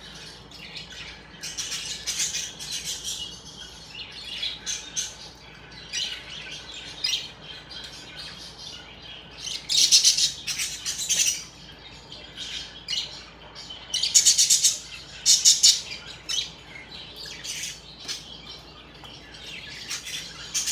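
Budgerigars chirping and chattering in a string of quick high calls, loudest in bursts about halfway through and again a few seconds later.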